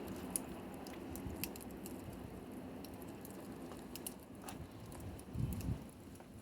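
Campfire crackling: scattered sharp pops and snaps of burning wood over a low, steady hiss of flame, with a louder low thump about five and a half seconds in.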